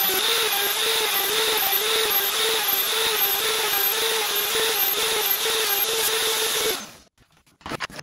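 Electric plunge router running at speed in a homemade router-sled planer, its bit cutting across the face of a wooden board. The whine wavers in pitch two or three times a second and stops abruptly about seven seconds in, followed by a few faint clicks.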